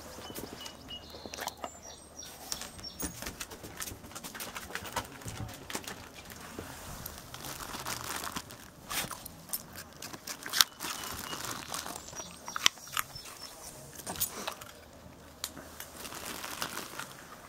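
A dog chewing a raw carrot: irregular crunches and crackles, with a few sharper cracks.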